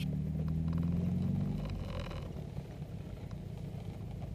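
Engine of a Ginetta sports car driving, heard from its bonnet. The engine note holds and rises slightly for about a second and a half, then eases off to a steady low rumble, with a brief hiss about two seconds in.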